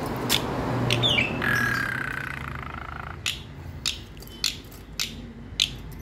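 Caged starling giving harsh, squawking calls with a short falling whistle, then a series of sharp clicks spaced about half a second apart.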